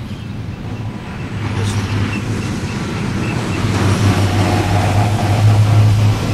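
Road traffic: a vehicle passing on the road, growing louder to a peak about five to six seconds in, over a steady low hum.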